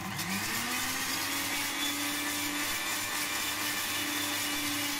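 Electric mixer-grinder motor spinning up with a rising whine, then running at a steady pitch as its blades grind a thick mint-and-curd chutney paste in the jar.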